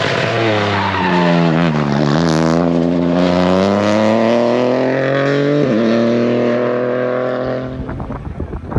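Rally car engine coming off the throttle into a hairpin, its note falling as it slows, then accelerating hard out of the bend with the pitch climbing steadily, broken once by a quick upshift about two-thirds of the way through. Near the end the engine sound gives way to wind buffeting the microphone.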